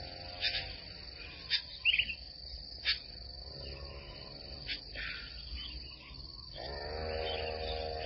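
Insects trilling steadily at a high pitch, with a few sharp clicks and a brief chirp about two seconds in. Background music with sustained tones returns about six and a half seconds in.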